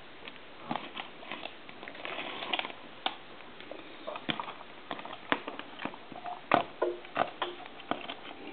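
Irregular small clicks and rustles of hands handling a telephone's wiring, circuit board and line cord while plugging it in; the sharpest click comes about six and a half seconds in.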